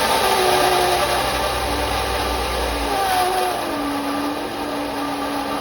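2010 Mercedes E350's 3.5 V6 engine running with a loud screeching from the front accessory belt drive: several wavering tones that shift in pitch over a steady hiss. The noise is the sign of a failing pulley bearing, traced in the end to the seized alternator.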